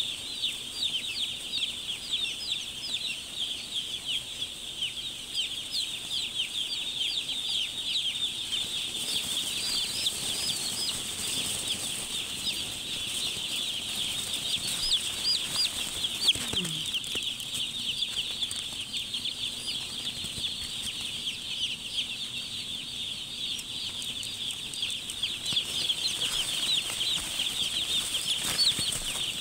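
A large flock of young chicks peeping all at once: a dense, unbroken chorus of short high chirps.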